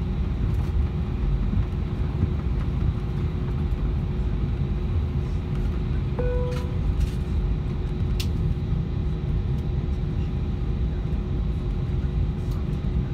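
Steady low rumble of an Airbus A320 cabin as the jet's engines run and the aircraft rolls on the ground, with a faint steady hum underneath. A brief single chime sounds about six seconds in.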